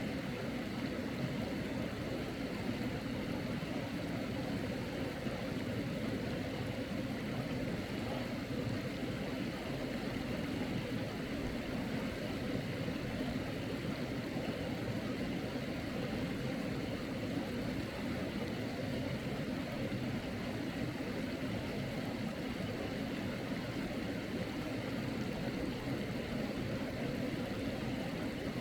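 Mountain stream water flowing: a steady, even rushing.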